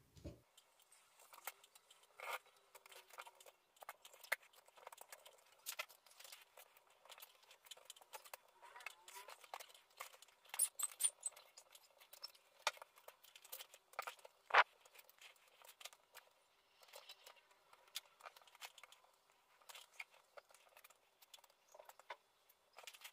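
Faint handling noise of string being wound tightly around a tripod's plastic leg-brace hub as a reinforcing binding: scattered small clicks, rubs and scratches of fingers, string, plastic and aluminium tubing, with a few sharper knocks around the middle.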